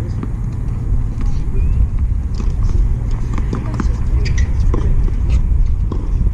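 Tennis balls bouncing and being struck on outdoor hard courts: a scatter of short sharp knocks over a steady low rumble, with faint voices.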